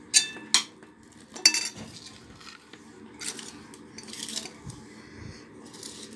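A steel spoon beating yogurt and ground spices in a metal bowl: three sharp ringing clinks of spoon on bowl in the first second and a half, then softer scraping and stirring.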